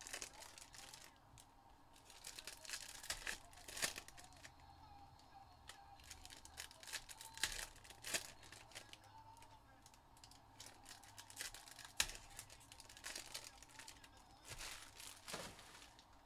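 Shiny foil trading-card pack wrappers being torn open and crinkled by hand, with the cards slid out and squared into a stack: an uneven string of sharp rips, crinkles and snaps.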